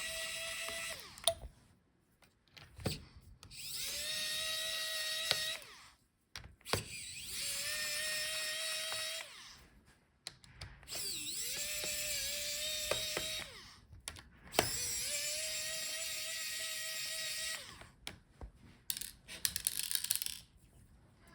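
Small electric screwdriver backing out the laptop's heatsink and fan screws. It gives five short runs of a steady whine, each two to three seconds, with clicks between runs.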